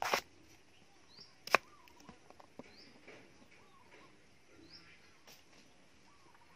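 Cleaver chopping through a banana flower onto a wooden chopping board: one chop right at the start and a sharper, louder chop about a second and a half in. Afterwards a few light clicks follow as the slices and the flower are handled.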